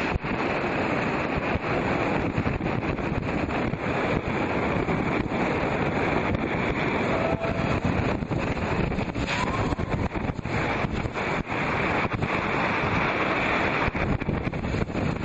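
Wind buffeting the microphone over the rush of rapids and a speedboat's engine running steadily.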